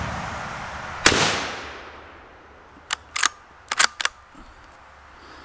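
A single rifle shot from a Ruger American Ranch bolt-action rifle in .350 Legend about a second in, its report dying away over about a second. About two seconds later the bolt is worked in five quick metallic clicks, ejecting the spent case and chambering the next round.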